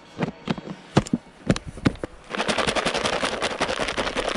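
Snap-on lid of a plastic yogurt tub pressed shut in several sharp clicks, then the closed tub shaken hard from about two seconds in, the food inside rattling and slapping in a fast continuous rattle.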